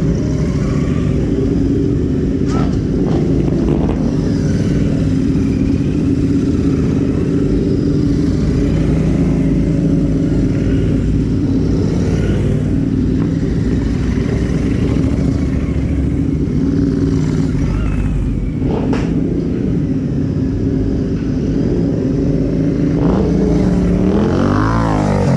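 Several Royal Enfield 650 parallel-twin race motorcycles running at low revs as they ride slowly out one after another. A bike revs up and back down as it passes near the end.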